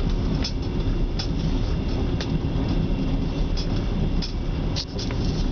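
A passenger train carriage running along the rails: a steady low rumble of wheels and running gear, heard from inside the carriage, with a few short sharp clicks at uneven intervals.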